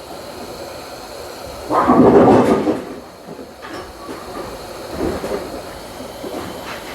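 Hot-air rework station blowing on a circuit board to reflow solder: a steady rushing hiss of air that swells louder for about a second near the start.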